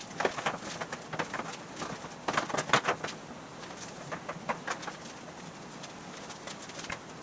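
Thin aluminum sheet panel being handled and fitted over a wooden body buck: irregular clicks and light knocks as the metal flexes and taps against the wood, loudest about two to three seconds in and sparser afterwards.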